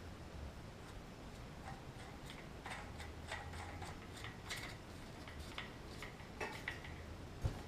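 Faint, scattered light clicks and small metallic taps of handling the angle grinder and its side handle, with a slightly louder knock near the end.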